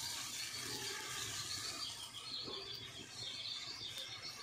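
Small birds chirping over and over, over a steady background hiss.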